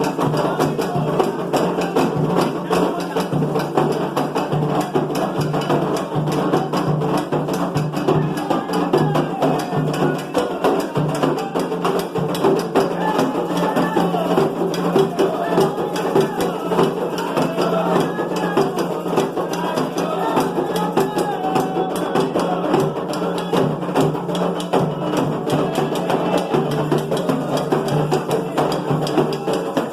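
Music with dense, fast percussive taps and voices over it, continuing steadily throughout.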